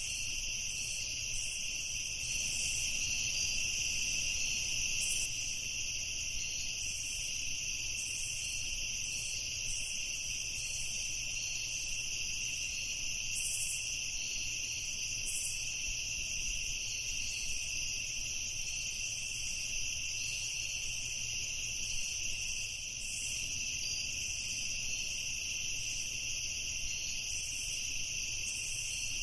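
Night chorus of crickets and other insects: a steady, unbroken trilling at two pitches, with shorter, higher chirps coming and going over it.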